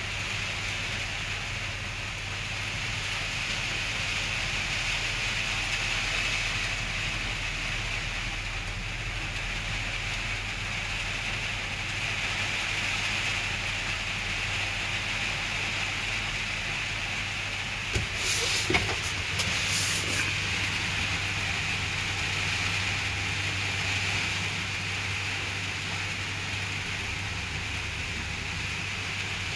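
Heavy rain falling steadily, over a low steady hum, with a few sharp knocks about eighteen to twenty seconds in.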